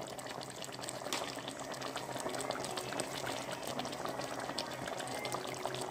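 Chicken pieces cooking in oil and their own juices in a pan, bubbling and sizzling steadily with many small crackling pops.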